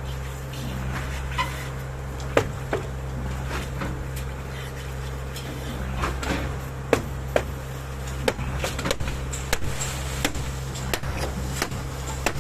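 Concrete pump's engine running with a steady low drone, with sharp knocks and clanks at irregular intervals throughout.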